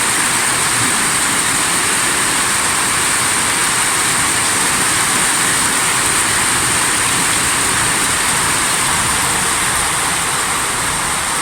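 Torrential rushing water, a loud, steady, even noise.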